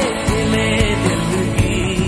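Background music: a melody line gliding over a dense low accompaniment.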